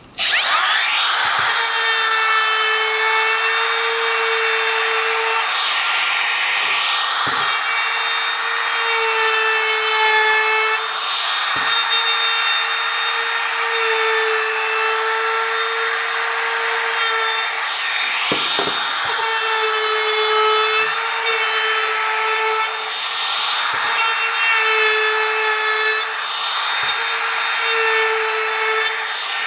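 Woodworking power tool cutting white oak: a steady high-pitched whine that starts abruptly and dips briefly now and then as the cut loads it.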